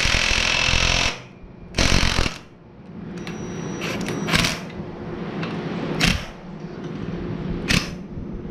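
Ridgid cordless impact wrench hammering the axle bolt of a mower's front caster wheel tight: one burst that stops about a second in, a short second burst, then three brief blips spaced over the following seconds. A steady low hum runs underneath.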